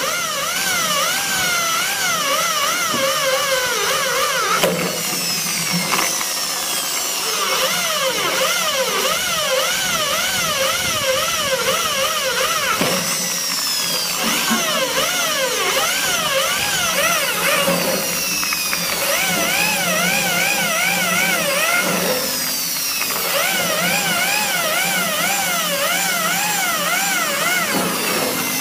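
Electric drill running with its bit cutting holes through sheet metal, a steady motor hum under a pitched squeal from the bit that rises and falls over and over as it bites into the metal.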